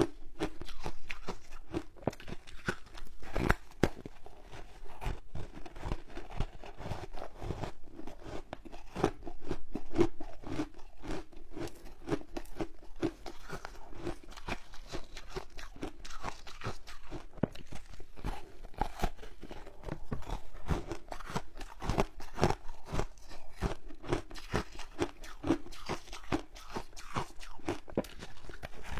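Crunching and chewing of frozen passion-fruit foam ice, bitten off a large slab: a dense, continuous run of sharp crackling crunches.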